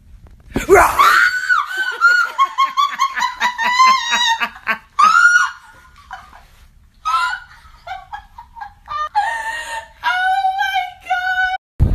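High-pitched shrieking laughter, opening with a rising squeal and going on in rapid breathless bursts of cackles, with a short pause in the middle before a second fit of squealing laughter.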